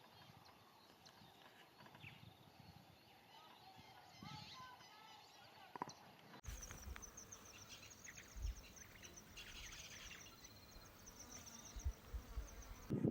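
Faint wild outdoor ambience with scattered small bird chirps. Then a high, rapidly pulsing insect-like trill runs on steadily, with a few low bumps.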